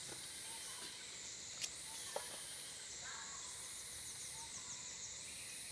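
A high, shrill chorus of insects that steps up and down in pitch about every two seconds, with a faint click about one and a half seconds in.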